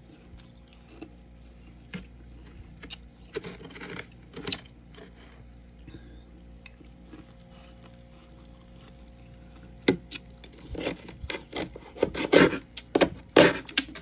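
Thick freezer frost being scraped, giving short rasping scrapes: a few around two and four seconds in, then a dense run of louder scrapes from about ten seconds in. A faint steady hum sits underneath.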